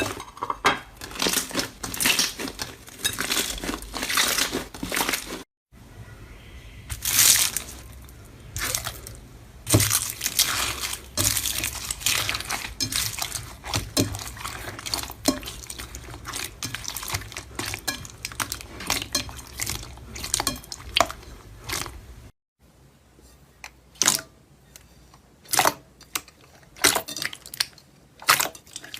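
Slime being squeezed and poked by hand: a run of pops, clicks and crackles. The sound breaks off in two short gaps, about five and a half and twenty-two seconds in, and after the second gap the pops come sparser.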